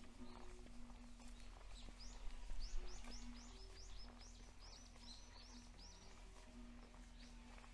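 A small bird sings a run of about a dozen quick, high, sharply sliding notes over roughly three seconds, starting about two seconds in. Under it is outdoor background noise with a faint steady low hum.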